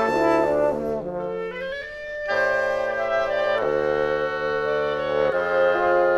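Woodwind quintet of flute, oboe, clarinet, bassoon and French horn playing held chords in several parts. The sound thins out about a second in, then a fuller chord comes in just after two seconds.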